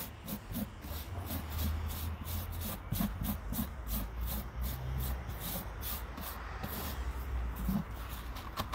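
Hands rubbing and stirring damp fishing earth in a plastic bucket, a scratchy rustle in quick repeated strokes of about three or four a second, working the wetting evenly through the earth.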